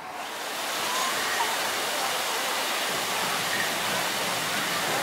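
Several waterfalls splashing down rockwork, a steady rush of falling water that swells in over the first second and then holds even.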